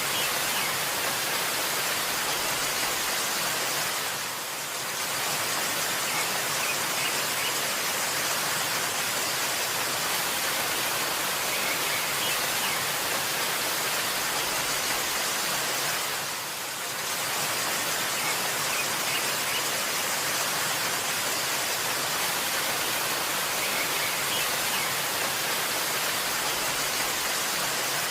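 Waterfall rushing as a steady, dense hiss of falling water, dipping briefly in loudness about four seconds in and again about two-thirds of the way through.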